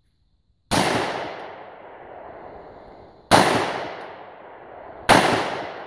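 Three single shots from an AR-15 rifle, fired at an unhurried pace: one about a second in, one about three seconds in, one near the end. Each shot is sudden and sharp, followed by a long echo that fades over a couple of seconds.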